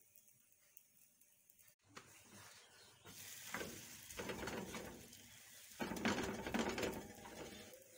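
Hands pressing and sliding a radish paratha around on a hot black tawa, a dry rustling scrape of dough on the griddle. It starts about two seconds in and comes in two louder spells, the second the loudest.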